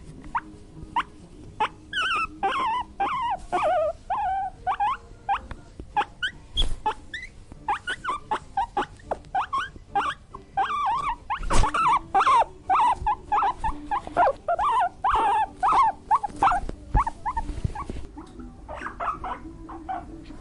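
An animal giving many short, whiny calls in quick runs, with a sharp louder sound about eleven and a half seconds in.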